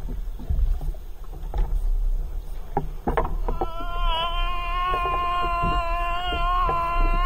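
Wind and water noise with a few sharp knocks, then from about halfway through one long, high, steady shout of triumph from the angler as he lifts a big fish into the kayak, falling in pitch as it ends.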